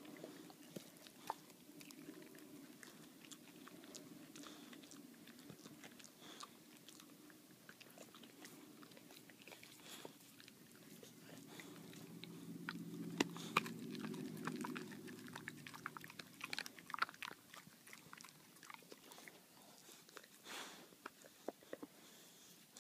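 Boxer dog gnawing on a bully stick held in a person's hand: chewing, with many sharp clicks of teeth on the chew. A low rumble swells in the middle.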